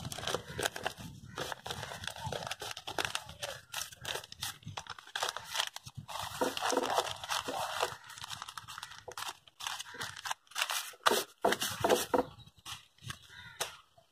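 Newspaper crinkling and rustling as a folded newspaper bag is pressed flat and folded by hand, in irregular crackles with short pauses near the end.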